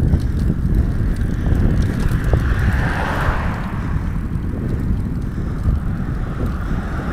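Wind buffeting the microphone of a camera on a moving bicycle, a steady low rumble, with a car passing: its tyre noise swells to a peak about three seconds in and fades away.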